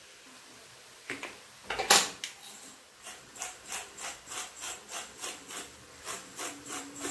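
A single knock about two seconds in, then a twist pepper mill grinding black peppercorns: an even, rhythmic rasping of about three strokes a second.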